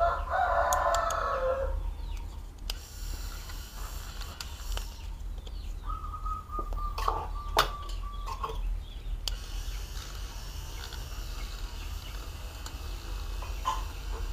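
A rooster crowing at the start, its call falling in pitch as it ends, then a second long, even call about six seconds in. Light clicks and scrapes of a hand tool working glue residue off a phone's back cover sound between the calls.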